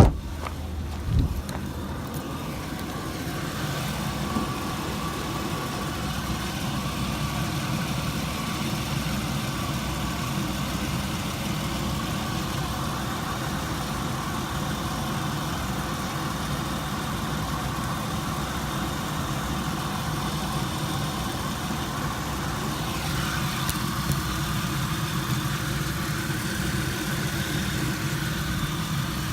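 2004 Chevy Venture minivan's 3.4-litre V6 running steadily with road noise, on a test drive after a heater hose replacement. There is a sharp click at the very start and a short thump about a second in.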